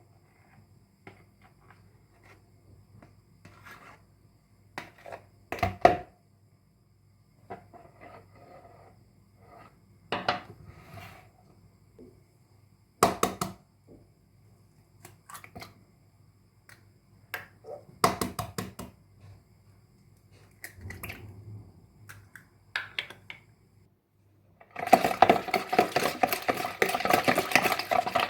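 Kitchen dishes and utensils handled in a small room: scattered clinks and knocks, then a dense, fast, continuous clatter for the last few seconds.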